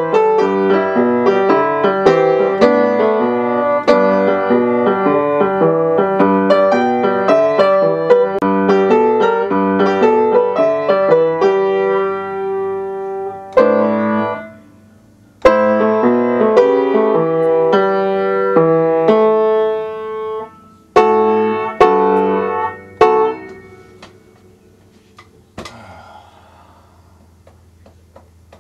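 Upright piano being played by hand: a busy run of notes and chords that stops briefly about halfway, picks up again, and ends with a few final chords about three quarters of the way through.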